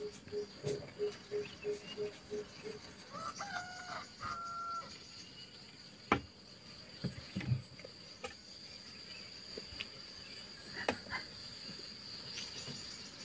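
A chicken clucking in a run of short repeated notes, about three a second, then giving two short higher calls about three to five seconds in. A few sharp clicks come later, and a steady high insect drone runs underneath.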